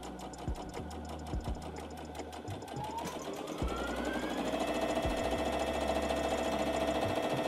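Brother Innov-is A80 sewing machine stitching a straight seam through cotton, its needle clattering rapidly. About three seconds in, the motor whine rises as the speed is pushed up to its top speed of 860 stitches per minute, then runs steady and louder until it cuts off near the end.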